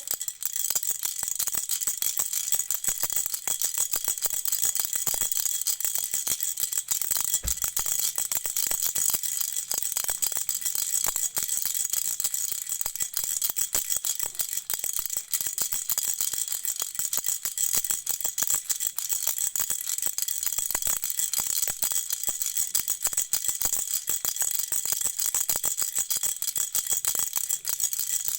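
Baby's toy rattle shaken steadily and rapidly, a dense unbroken stream of small bright rattling clicks.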